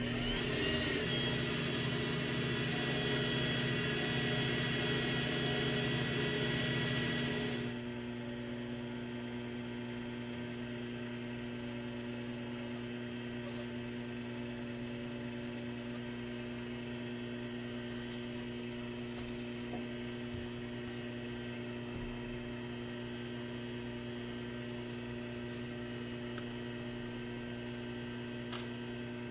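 Benchtop mini lathe motor running steadily with a constant hum. For about the first eight seconds a louder hiss and whine rides over it, then drops away sharply, leaving the plain hum, with one small click near the end.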